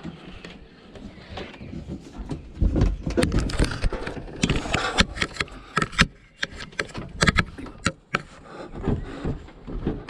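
Washing machine being manhandled: a run of knocks, clunks and scraping from its metal cabinet, starting about two seconds in, with one heavier bang near the middle.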